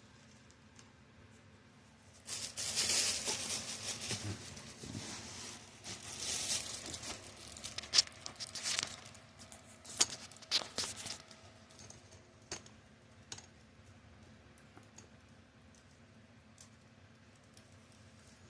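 Packaging being handled: crinkling and tearing in bouts over several seconds, with a few sharp clicks or taps, then quieter rustling toward the end.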